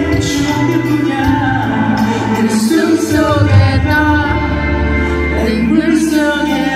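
A male singer sings live into a microphone with band accompaniment, heard through the concert sound system.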